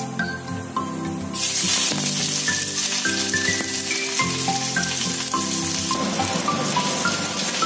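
Chopped onion hitting hot oil in a wok starts sizzling suddenly about a second and a half in, then keeps up a steady frying hiss. Light background music with plucked notes plays throughout.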